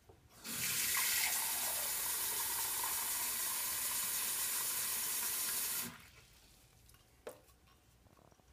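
Kitchen faucet running into a glass measuring cup held over a stainless steel sink, a steady rush of water filling the cup. It starts about half a second in and is turned off sharply about six seconds in.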